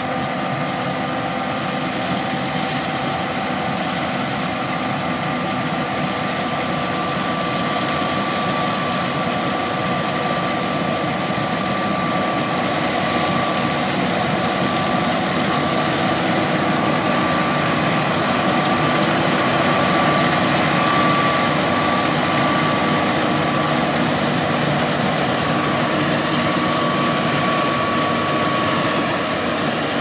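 John Deere S780 combine harvesting soybeans: a steady drone from the engine and threshing machinery, with a constant high whine running through it. It grows a little louder about two-thirds of the way through.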